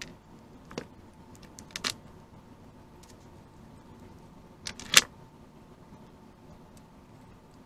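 Light clicks and clinks of small metal and plastic chainsaw parts being handled during a Stihl 029 teardown, with a few scattered ticks in the first two seconds and one sharp knock about five seconds in, the loudest.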